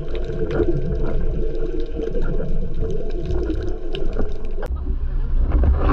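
Muffled underwater sound of moving seawater just below a choppy surface, with a steady low hum and scattered small clicks and bubbles.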